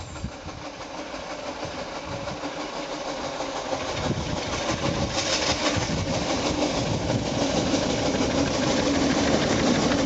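15-inch-gauge steam locomotive pushing a snowplough through deep snow, its exhaust beating rhythmically and growing louder as it approaches and draws level.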